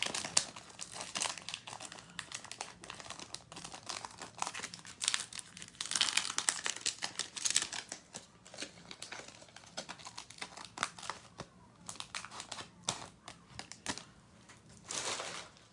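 Foil wrapper of a trading-card pack being torn open and crinkled in the hands, an irregular crackling with louder bursts near the start, midway, and near the end.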